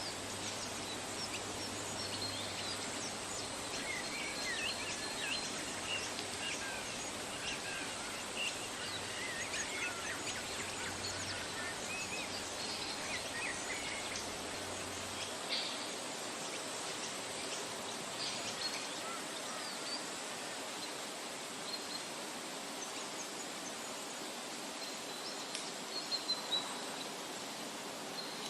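Small birds chirping over a steady outdoor hiss, with a few short taps near the end.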